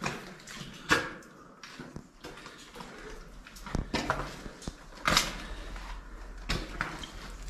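Footsteps on the gritty rock floor of a narrow cave passage, about one step a second, some louder than others.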